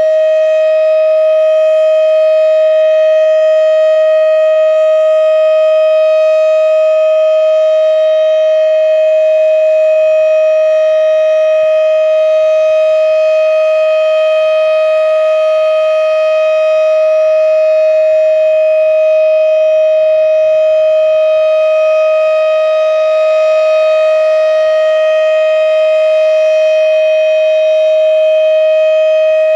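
Federal Signal Thunderbeam RSH-10 rotating electromechanical outdoor warning siren sounding the steady full alert signal: one loud, held pitch that neither rises nor falls.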